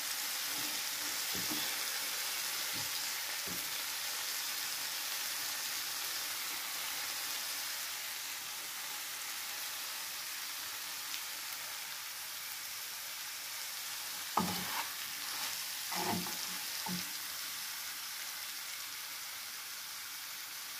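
Liver strips and sliced peppers sizzling steadily in a frying pan while being stirred with a spatula; the sizzle eases a little in the second half. A few soft knocks come in the first few seconds, and a cluster of spatula knocks and scrapes against the pan about fourteen to seventeen seconds in.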